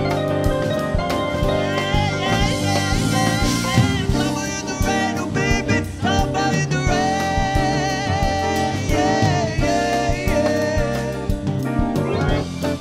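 A live rock band playing: drum kit, keyboards and electric guitar, with a male voice singing the melody through most of it.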